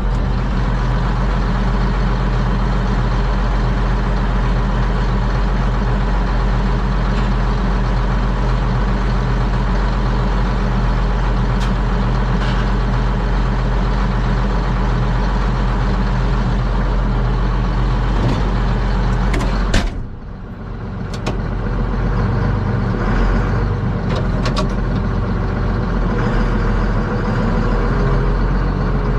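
A vehicle engine running steadily, with a sudden dip in sound about two-thirds of the way through before it carries on.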